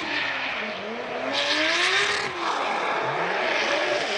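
2JZ straight-six engine of a GR86 drift car revving up and down as it drifts, its note rising and falling several times. The rear tires screech through the slide, loudest about a second and a half in.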